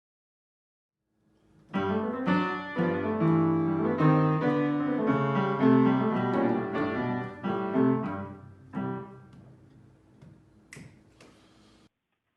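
Solo piano playing chords and a melody, coming in about two seconds in and dying away after about nine seconds as the last notes ring out. A short, sharp high sound comes near the end, and the sound then cuts off suddenly.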